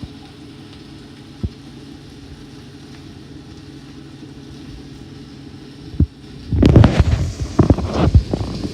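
A steady low hum with a couple of single clicks, then about six and a half seconds in a loud run of clattering knocks and scrapes, as of a utensil working in a frying pan.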